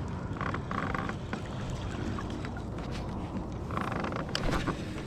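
Kayak sounds: a steady low rumble with a few short creaks and knocks, a little under a second in and again around four seconds in.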